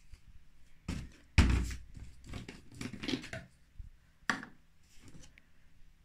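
Hard plastic containers and a plastic dosing cup knocking and clattering as they are handled and set down on top of a washing machine. There is a sharp knock about one and a half seconds in, a run of smaller rattling knocks after it, and another knock past the four-second mark.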